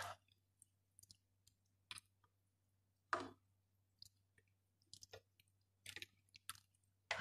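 A spoon stirring chopped vegetables in a soup pot: sparse soft clicks and knocks against the pot, with a slightly longer one about three seconds in.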